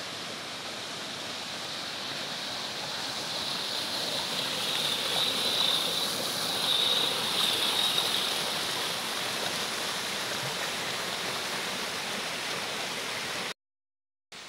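Muddy river in flood, swollen by days of rain, rushing and breaking white over rocks in a steady roar of water. It grows louder in the middle as the rapids come close, then cuts off suddenly about a second before the end.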